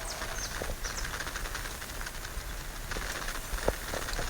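Steady outdoor background hiss, with a few faint clicks and short high chirps.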